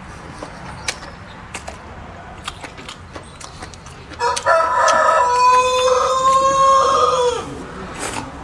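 A rooster crowing once, a single long call of about three seconds starting about four seconds in, with scattered faint clicks before it.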